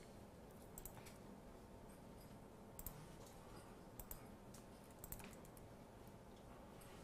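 Faint keystrokes on a computer keyboard: a few scattered clicks at a time, with near silence between.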